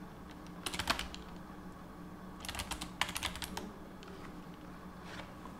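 Typing on a computer keyboard: a quick run of keystrokes about a second in, a longer run from about two and a half to three and a half seconds in, and a single keystroke near the end.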